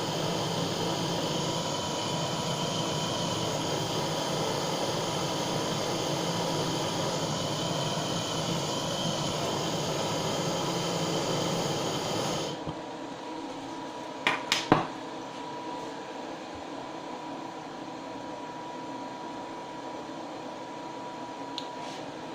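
Butane blowtorch hissing steadily as the flame is played over a freshly poured solder ingot to melt out a surface crater; the hiss cuts off suddenly about twelve seconds in. A few sharp clicks follow a couple of seconds later, then a faint steady hum.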